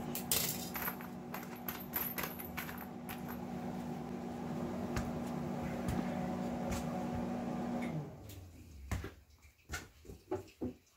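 Welding machine humming steadily, with metal chain links clinking and knocking as they are handled. The hum cuts off about eight seconds in, leaving only a few scattered clinks and knocks.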